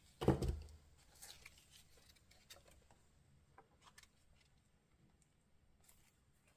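Faint rustling and light taps of paper being handled: a magazine photo cutout laid on a journal page and pressed down by hand to glue it, with a brief louder sound just at the start.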